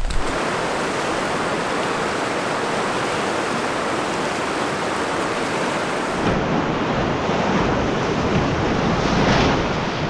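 Whitewater of a Class 2–3 river rapid rushing steadily. About six seconds in the sound comes closer, with more low rumble of water around a canoe, and it swells briefly near the end.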